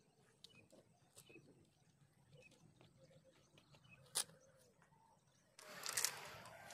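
Quiet open-air background with faint scattered ticks and one sharp click about four seconds in. Near the end, loud rustling and handling noise starts suddenly close to the microphone.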